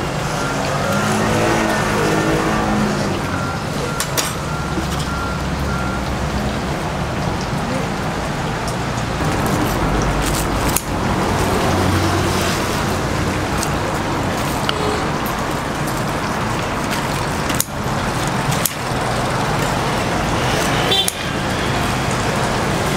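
Busy street ambience: steady traffic noise with background voices, and a few sharp clicks.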